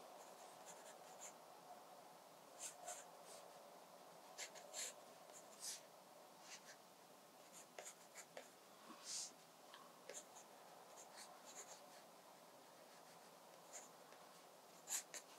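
Faint scratching of a graphite pencil on watercolour sketchbook paper, in short irregular strokes as shapes are sketched in.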